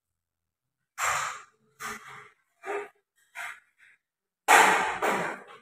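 Metal parts of a folding stainless-steel telescopic fence rattling and scraping as they are handled, in short irregular bursts, the loudest and longest near the end.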